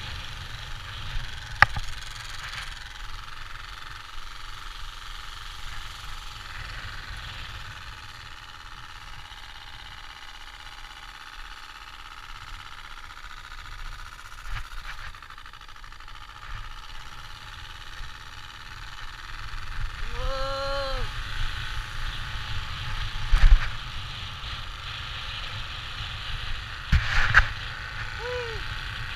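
Card in a bicycle's motorcycle-exhaust noisemaker flapping against the turning spokes, making a steady buzzing imitation of a motorbike engine. It grows somewhat louder about two-thirds through, with a few sharp knocks along the way.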